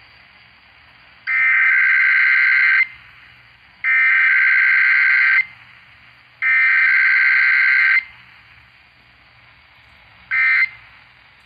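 Emergency Alert System SAME data bursts in a Required Weekly Test: three long, buzzy digital header bursts of about a second and a half each, a second apart, then the first short end-of-message burst near the end. No attention tone sounds between them.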